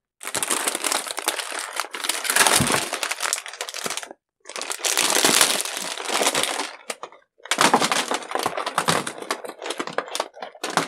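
Plastic wrapping and packing paper crinkling and rustling as a potted orchid is unwrapped and lifted out of a cardboard box, in three long spells of crackling with short pauses between them.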